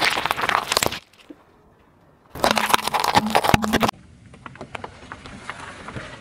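Car tyre rolling over and crushing things on asphalt: two loud bursts of crunching and crackling, the first about a second long and the second about a second and a half, with a short quiet break between them. Fainter gritty crackling of the tyre on the road surface follows.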